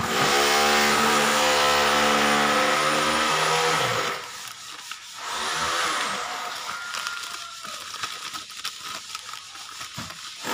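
A motor whirring loudly, its pitch sliding down as it stops about four seconds in. Fainter scattered clicks follow.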